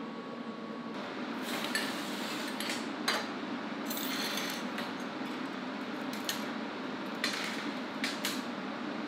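Steel parts and tools being handled on a steel welding table: irregular clanks, clicks and short scrapes of metal on metal, starting about a second in after a brief steady hum.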